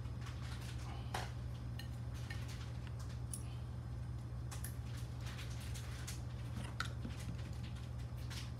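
Scattered light clicks and clinks as a carbon-fibre quadcopter frame and small tools are handled on a bench, over a steady low hum.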